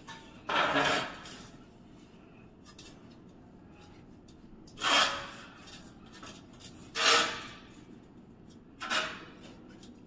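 Perforated galvanized steel cable tray scraping and rubbing as it is shifted and handled on a concrete floor, in four short scrapes spread a couple of seconds apart.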